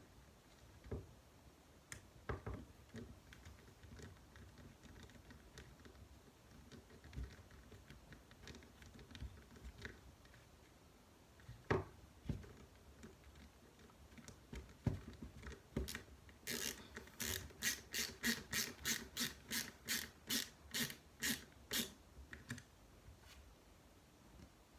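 Hands working on RC crawler kit parts make scattered small clicks and knocks. About sixteen seconds in comes a run of about twenty quick, evenly spaced scraping strokes lasting some six seconds.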